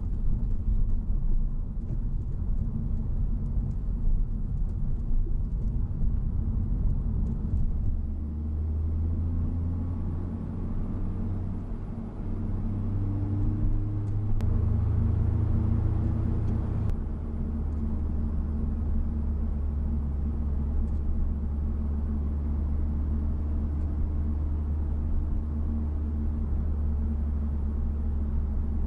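Honda Civic Type R (FL5) on the move, heard from inside the cabin: a steady low drone of its turbocharged 2.0-litre four-cylinder engine and road noise. The engine note steps up and down in pitch a few times around the middle.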